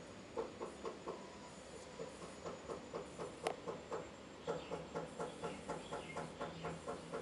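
Sugar glider chewing crunchy food, rapid even crunches at about five a second, thinning out in the middle. A single sharp click about three and a half seconds in.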